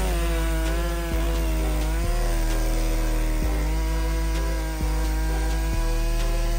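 Stihl MS 661 C-M Magnum two-stroke chainsaw running at high revs, its pitch holding nearly steady with small dips, as in a cut through wood. Background music with a steady bass beat runs underneath.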